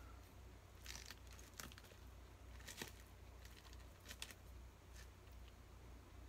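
Faint clicks and crinkles of disposable wooden chopsticks picking at an omelette in a thin plastic takeout tray, a handful of scattered taps over a low steady hum.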